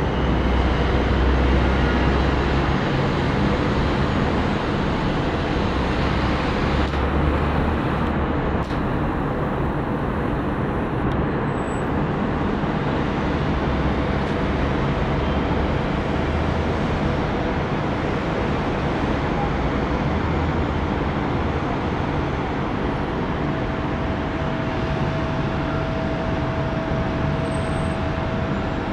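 Steady road traffic noise from the busy streets far below, an even hum with an uneven low rumble. A faint steady whine joins in about two-thirds of the way through.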